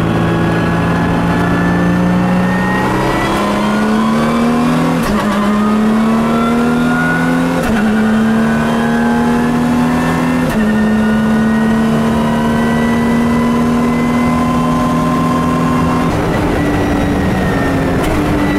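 Lotus race car's engine pulling hard up through the gears, heard inside the cabin. Its note climbs and then drops sharply at each quick paddle upshift, about 3, 5, 7.5 and 10.5 seconds in. It holds a steady pitch for several seconds before the note changes near the end.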